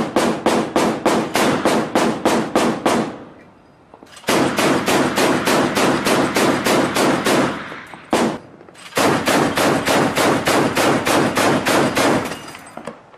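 Ship-mounted machine gun firing long bursts of automatic fire, about five rounds a second. Three long bursts of a few seconds each, with a short burst in the pause before the third.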